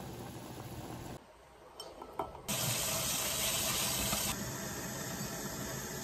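A pot of ramen noodles boiling on an electric stovetop, then, after a cut, a couple of light clicks and the kitchen faucet running into the sink, loudest for about two seconds before it settles to a lower, steady flow.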